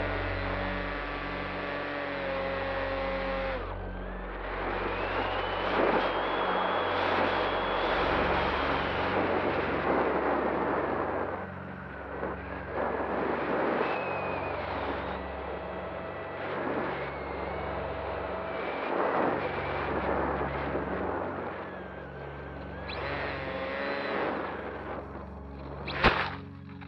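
Turnigy Aerodrive SK3 1500kv brushless outrunner motor and propeller of a Bixler 3 electric RC plane whining in flight, its pitch rising and falling with the throttle, under a heavy rush of wind noise. A sharp knock near the end is the loudest sound.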